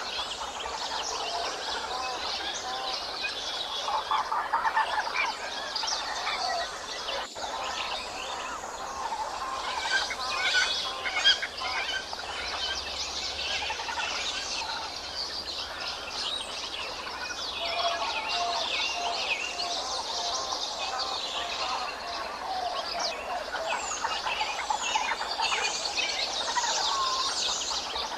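Many birds chirping and calling at once, short overlapping chirps and whistles in a steady chorus.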